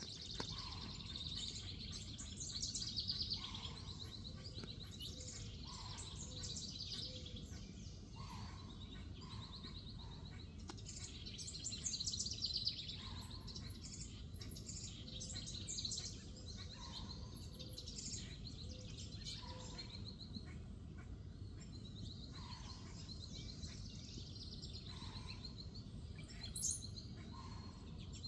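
An unidentified animal calling outdoors: a short, low note repeated every second or two. Behind it runs a continual chorus of high, rapid chirps over a steady background hum.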